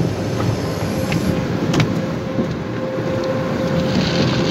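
Automatic car wash machinery running with water spraying onto the car, heard from inside the car, over a steady hum.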